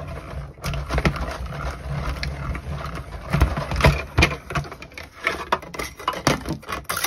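Hand-cranked die-cutting machine pressing a die and paper through its rollers, with a low rumble and irregular clicks and knocks from the plates.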